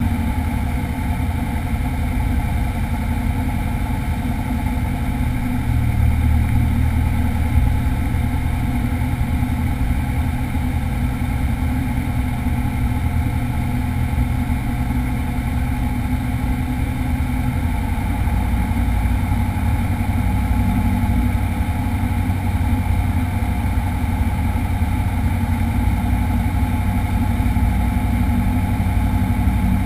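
Single-engine light aircraft's piston engine and propeller running steadily on final approach, heard from inside the cabin. The engine note shifts slightly about 6 seconds in and again about 18 seconds in.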